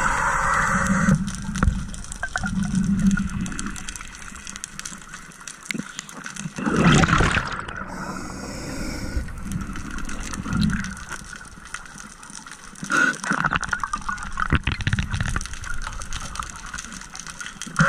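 Muffled underwater water noise picked up through a camera's housing, with a loud gush of bubbles about 7 seconds in and a shorter one about 13 seconds in.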